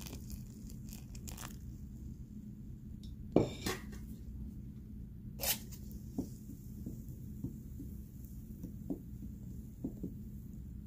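Wooden spoon stirring thick blended bean batter for koki in a metal pot, just after a little warm water is poured in: soft squelching with a couple of sharper knocks of the spoon against the pot, the loudest about a third of the way in, and light ticks as the stirring goes on.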